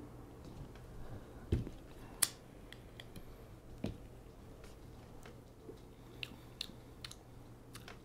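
A man puffing on a lit tobacco pipe: faint, scattered lip smacks and small mouth clicks as he draws on the stem, with a dull knock about one and a half seconds in and a few sharper ticks.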